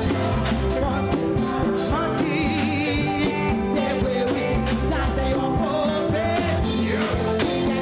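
A church band playing a worship song, with drums and singing.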